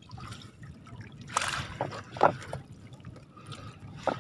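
Lake water dripping and trickling out of a long-handled mesh scoop net full of small fish as it is held up out of the water. There is a brief splash about a second and a half in and a short knock just after.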